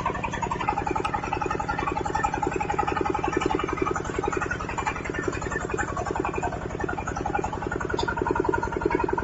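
The 25 hp diesel engine of a portable water-well drilling rig running steadily, a fast even engine pulse with a steady higher hum over it.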